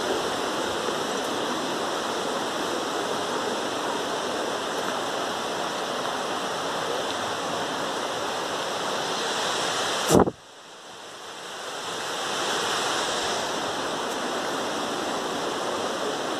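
Steady rush of a river flowing below, an even hiss. About ten seconds in there is a sharp knock, and the rush drops away suddenly, then swells back over the next couple of seconds.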